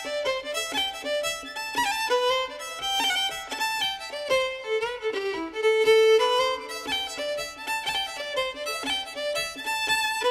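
Irish-style fiddle tune played fast, with quick runs of short notes.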